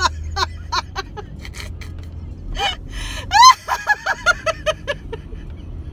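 A woman laughing hard in gasps and bursts: a loud high squeal of laughter about three seconds in, then a quick run of short ha-ha pulses. This is deliberate laughter-yoga laughter. A steady low rumble of the car runs underneath.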